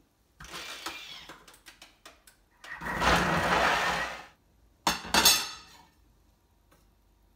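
Thermomix blade spinning at top speed through frozen banana chunks and coconut milk: a loud noisy whir with clicks and rattles in short stretches, loudest from about three to four seconds in, then one short loud burst about five seconds in.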